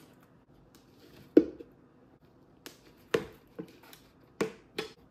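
Hollow knocks and taps from a plastic cup being handled in a small glass terrarium: about six short knocks, the loudest about a second and a half in and the rest spaced over the last half of the clip.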